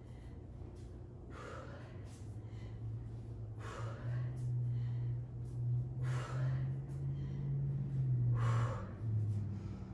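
A person breathing out hard in short, forceful exhales, one about every two and a half seconds, four in all, each timed with the lift of a V-up sit-up. A steady low hum runs underneath and grows louder through the middle.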